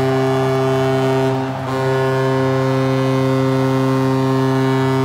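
Ice hockey arena's goal horn blowing a deep, steady, ship-like blast, with a short break about one and a half seconds in, sounding for the home team's win.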